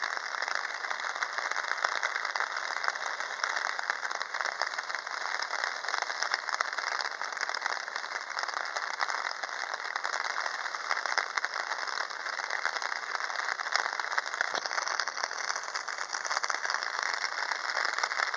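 Heavy rain: a steady, dense patter of raindrops close to the microphone.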